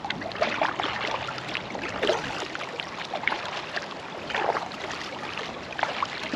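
Water splashing and dripping in irregular bursts as a kayak is rowed, the oars dipping and pulling through the water.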